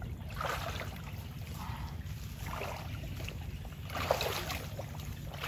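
Hooked fish thrashing and splashing in shallow, muddy pond water, heard as several irregular bursts of splashing over a steady low rumble.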